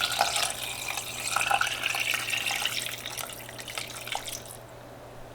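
Kitchen tap running, water filling a container to top up the soup pot. It starts with a click and runs for about four and a half seconds before tailing off.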